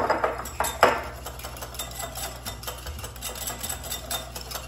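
Whisk beating mayonnaise and Italian dressing in a glass bowl: a fast, continuous run of light ticks as it strikes the glass, with two louder knocks in the first second.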